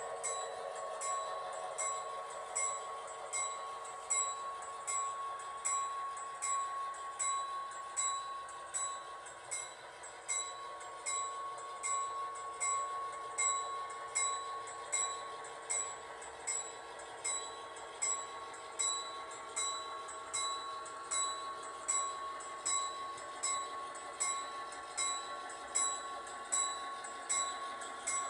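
Model railroad sound: a locomotive-style bell ringing steadily, about three strikes every two seconds, over a steady electronic hum played through a small speaker.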